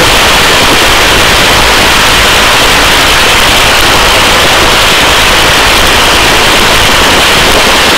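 Loud, steady rushing noise of a hovering rescue helicopter: rotor wash and wind on the open-door microphone, unchanging throughout.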